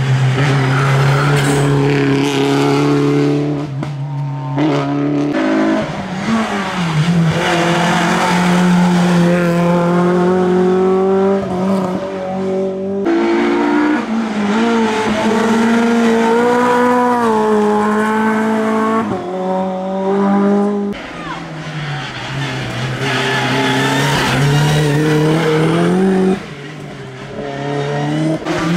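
Rally car engines revving hard through a series of tight bends on a hillclimb. The pitch climbs and then drops sharply with each gear change or lift off the throttle, several times over, as more than one car goes by.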